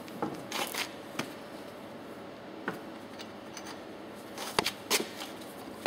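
Scattered sharp clicks and knocks of cast-iron pump parts as the air chamber of a Track C1 piston pump is rocked and worked loose by hand, the loudest knocks about four and a half seconds in.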